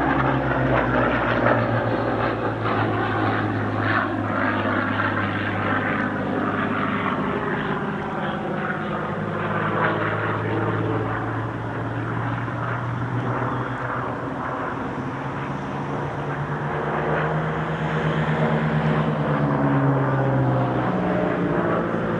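Supermarine Spitfire Mk Vc's Rolls-Royce Merlin V12 engine and propeller in a display flypast, a steady loud drone whose pitch slides down through the first half and climbs again in the last few seconds.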